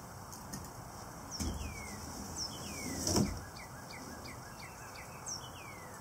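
A songbird singing down-slurred whistles, with a quick run of short falling chirps in the middle. About three seconds in comes a single dull knock, the loudest sound, as the kayak is shifted on the load-assist arm.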